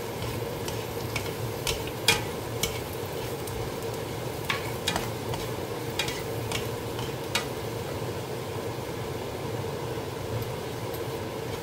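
Sliced shiitake mushrooms and onion sizzling in oil in a nonstick frying pan while wooden spatulas stir them. The spatulas knock and scrape against the pan about once a second, and the knocks die away about seven seconds in, leaving the steady sizzle.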